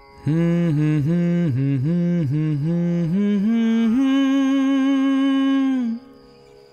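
A man's voice singing a wordless, drawn-out melisma: the pitch wavers up and down in short notes about three times a second, then holds one long, higher note from about four seconds in until it stops near six seconds.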